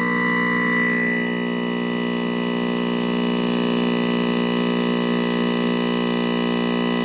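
Synthesized Nintendo game sound playing through the speaker of a 1969 Zenith tube television: a steady, buzzy drone of held electronic tones, shifting slightly about a second in.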